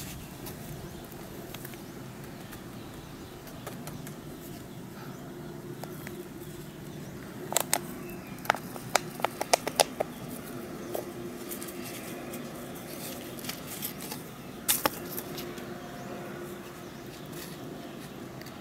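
A plastic container of wood sawdust being handled and shaken over a plant pot, giving a cluster of sharp taps and rattles about halfway through and two more a few seconds later, over a steady low background hum.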